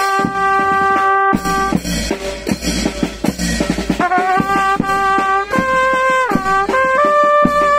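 Vietnamese funeral brass band (kèn tây) playing: trumpets and trombones holding long notes that step from pitch to pitch, with a bass drum keeping the beat under them.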